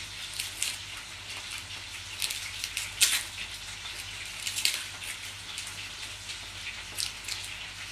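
Pork fillet sizzling in a frying pan over a low steady hum, with scattered sharp crackles, the loudest about three seconds in.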